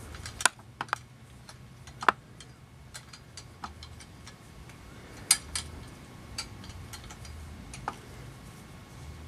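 Scattered sharp metal clicks and knocks from vise grips (locking pliers) clamped on a hanger bolt as the bolt is twisted out of a wooden furniture leg. The louder knocks come about half a second, two seconds and five seconds in.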